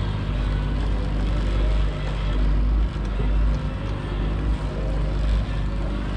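150 hp outboard motor running steadily at trolling speed, a low drone, with uneven wind rumble on the microphone.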